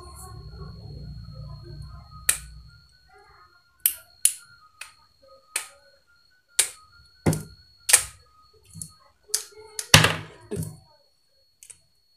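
AA batteries snapping onto a flashlight's magnetic tail cap and onto each other: about a dozen sharp metallic clicks at irregular intervals, after a couple of seconds of low handling rustle.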